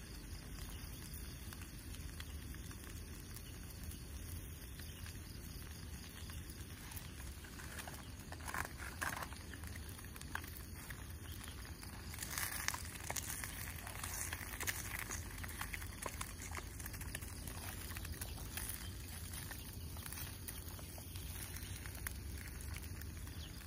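Steady hiss of a portable gas canister stove toasting bread in a small pan, with scrapes and taps of a wooden spatula in the pan about a third of the way in and again just past the middle.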